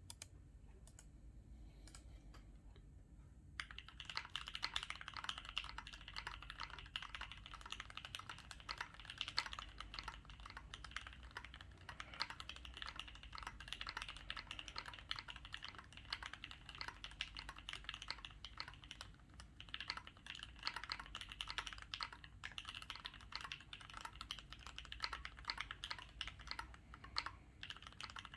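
Custom 60% mechanical keyboard with Mekanisk Ultramarine linear switches, GMK keycaps and an FR4 plate being typed on. A few scattered keystrokes give way, about three and a half seconds in, to fast continuous typing.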